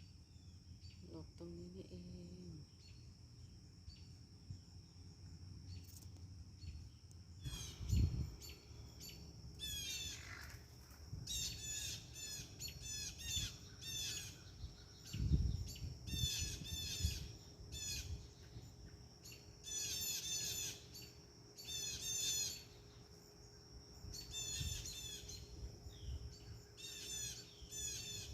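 Birds calling in a backyard: from about a quarter of the way in, repeated bursts of quick, high, squawky notes every second or two. Strong wind rumbles on the microphone, with gusts.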